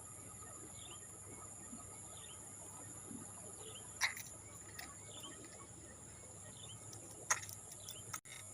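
Steady high-pitched insect drone with a bird repeating short falling chirps about once a second. Two sharp clicks, about four and seven seconds in.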